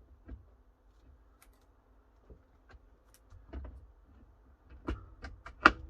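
Scattered clicks and knocks as a steering wheel is fitted onto the steering column of a Mini Cooper S. A quick run of sharper knocks comes near the end, the last of them the loudest.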